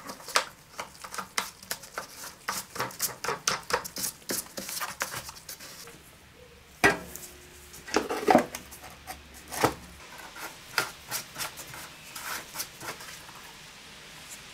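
Rapid clicks and knocks of hard plastic and sheet-metal engine covers being handled and fitted by hand onto a Briggs & Stratton lawn-tractor engine. There is one louder knock about seven seconds in and a short cluster of knocks about a second later.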